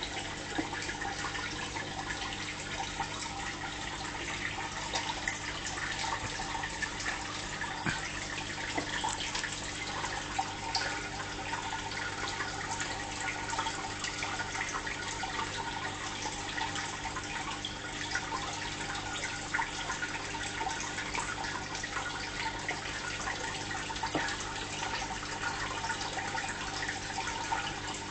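Aquarium water circulating: steady trickling and bubbling with many small drips, over a steady low hum.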